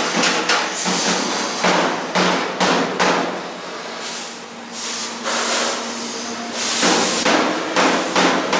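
Hand hammers striking sheet-metal body panels, panel-beating in a coachwork shop: repeated sharp metallic blows a few a second, easing off a little past the middle and picking up again near the end, over a steady low hum.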